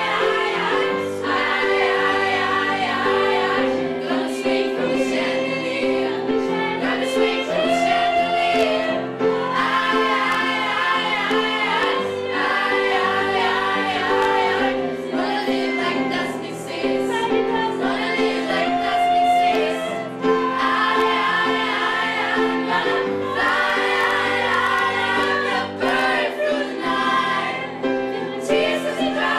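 A choir singing a song, with phrases rising and falling over steady sustained lower notes.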